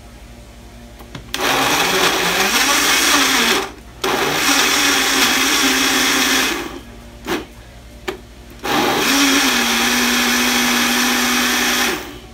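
Countertop electric blender motor blending chunks of fruit and cold water into a shake. It runs in three long bursts with two short pulses in between, its whine rising as it spins up through the fruit at the first start, then holding steady.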